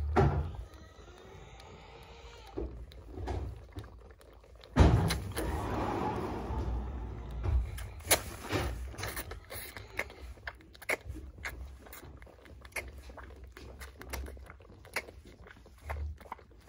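Calf sucking milk from a bottle teat, with many short wet sucking clicks and slurps. A pig squeals in the background, loudest from about five to eight seconds in.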